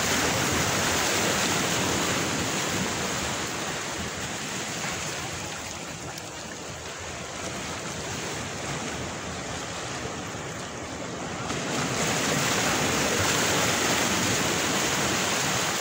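Small sea waves washing against a rocky shore, a steady rushing that eases in the middle and swells again about twelve seconds in.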